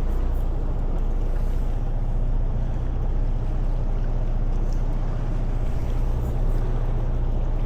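Fishing boat's engine running steadily: a low, even hum under a constant wash of noise.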